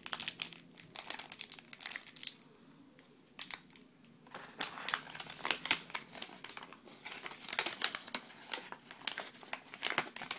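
Clear plastic bag and brown paper wrapping crinkling as hands handle and unfold them around a motorcycle connecting rod kit, in irregular bursts that ease off briefly a few seconds in.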